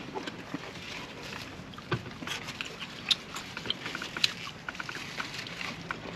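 Close-up chewing of a lettuce-wrapped (protein style) burger: irregular crisp crunches and wet mouth clicks.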